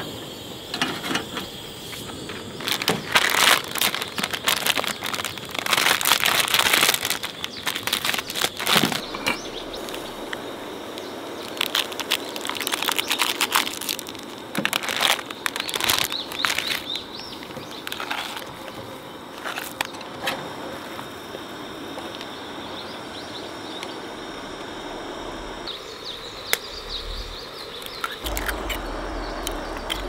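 Plastic ramen packets crinkling and tearing in repeated bursts as the noodles and soup powder go into a pot of boiling water on a portable gas stove, over a steady rushing hiss.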